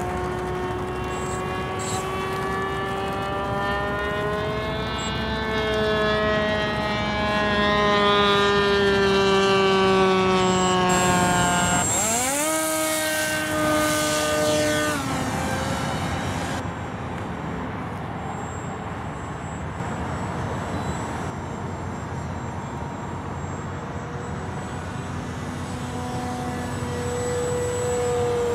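A radio-controlled scale model Curtiss Pusher biplane's motor and pusher propeller running. The pitch shifts up and down while it taxis, then rises sharply about twelve seconds in as the throttle opens for the takeoff run. After that it sounds fainter as the plane climbs away, and grows louder again near the end as it passes overhead.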